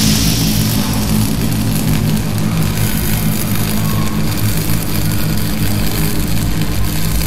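Electric arc sound effect: a loud, steady low buzzing hum with a crackling hiss above it.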